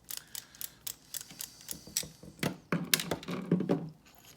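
Small sharp metal clicks and taps from a Phillips screwdriver working on a brass padlock being taken apart. A denser, louder run of clattering and rattling comes from about two and a half seconds to nearly four seconds in.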